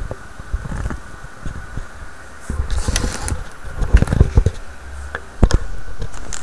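Close handling noise of small hard objects: rustling and scraping with several sharp clicks and knocks, the loudest about four and five and a half seconds in.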